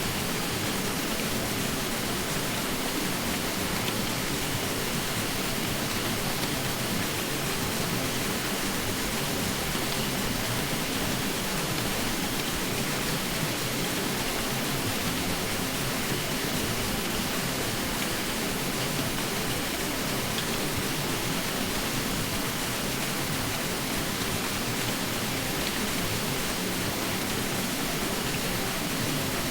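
Ceiling fan hum: a steady, unvarying whooshing noise spread evenly from low to high, with no beat or pitch in it.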